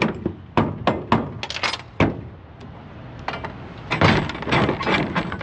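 Semi-trailer rear-door lock rods and latch hardware clanking as they are worked by hand and with a rubber mallet: a series of sharp metal knocks and rattles, thickening into a quick clatter about four seconds in.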